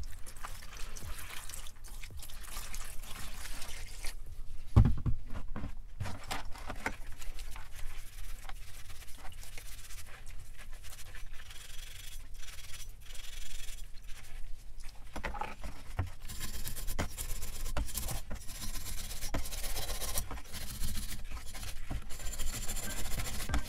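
Water poured from an electric kettle into a plastic tub, then the splashing and clinking of rusty metal parts handled in the water, with a single knock about five seconds in. Scrubbing and rubbing on the wet metal grows busier in the last several seconds.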